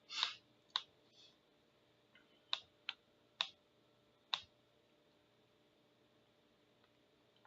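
About six sharp, separate clicks at a computer in the first four and a half seconds, then quiet room tone.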